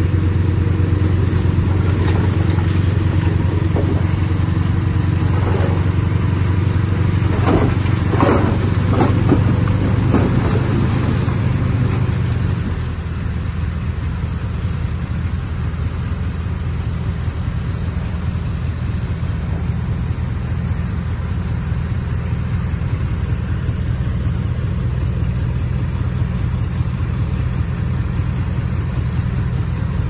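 Heavy-equipment diesel engine running steadily, dropping in level about twelve seconds in, with a few short squeaks about eight to ten seconds in.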